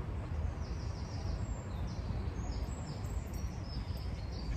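Outdoor ambience: a steady low rumble of wind on the microphone, with small birds chirping over it in many short, high notes.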